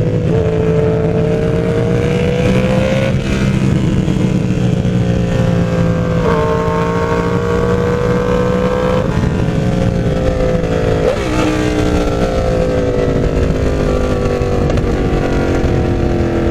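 Yamaha R1 inline-four engine riding under way. Its pitch climbs under throttle twice, jumps up at a couple of points, then falls steadily through the last few seconds as the bike slows.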